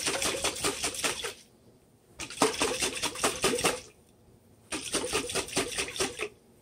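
Open glass sauce jar shaken hard upside down to empty the last of the sauce, rattling several times a second in three bouts with short pauses between them.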